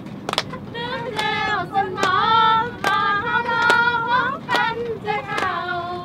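A group of women singing a song together, with sharp hand claps roughly once a second, over the low rumble of the truck they are riding in.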